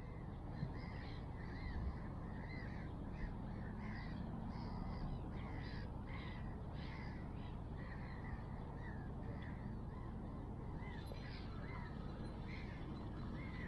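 A bird calling over and over: short arched calls about one to two a second, over a steady low background noise.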